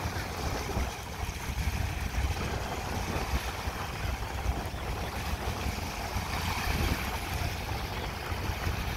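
Wind buffeting the microphone over a steady lake-shore wash of small waves lapping and motorboats running in the distance.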